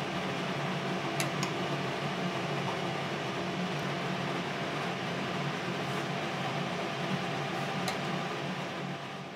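Steady low hum with an even hiss, broken by a few faint clicks, fading out at the very end.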